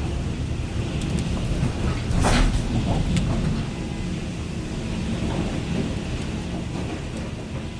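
Heavy rain falling steadily, with a sharp crack of thunder a little over two seconds in that rumbles on for about a second before the rain alone carries on.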